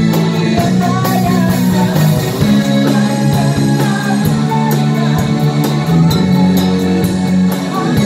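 A woman singing a Malay rock song live into a handheld microphone, backed by a band with electric guitar and drum kit.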